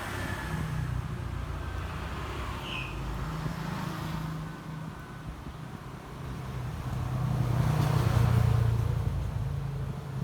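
A road vehicle's engine passing by, its low hum growing louder toward about 8 seconds in, then fading. A short high chirp sounds about 3 seconds in.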